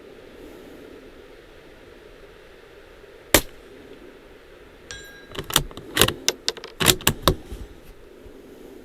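A single shot from a suppressed .22LR Bergara B14R bolt-action rifle, followed about a second and a half later by a faint ringing tone, then a quick run of metallic clicks and clacks as the bolt is worked to eject the empty and chamber the next round. Steady wind noise throughout.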